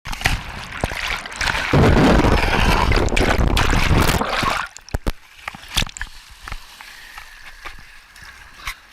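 Glacial meltwater stream running loudly close by. About four and a half seconds in it drops to a much quieter trickle with scattered sharp clicks.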